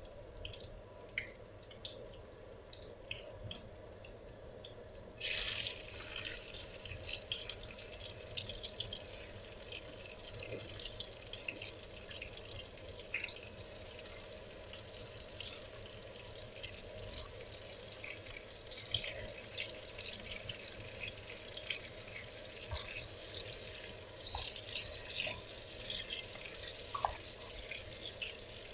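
Chopped garlic and onion frying in oil in a pan: a steady sizzle with many small crackles and pops of spitting oil. About five seconds in a louder hiss flares for under a second as diced tomato goes into the hot oil.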